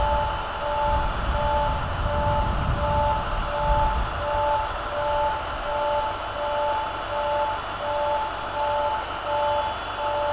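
Railway level-crossing alarm ringing, a steady electronic two-tone warning that alternates high and low about three times a second, the signal that a train is approaching. A low rumble underneath fades out about four seconds in.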